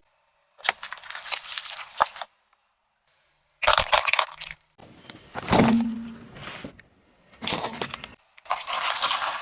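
Objects cracking and crunching as a car tyre rolls over and crushes them, in about five short bursts with silent gaps between them.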